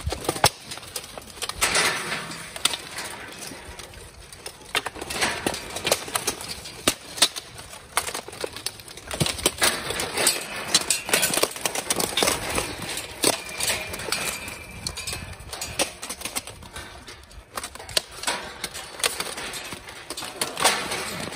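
Steel armor and weapons clashing in a multi-fighter armored melee: many irregular, sharp metal knocks and clanks of axe and sword blows on helmets, plate and shields, along with armored bodies grappling against each other.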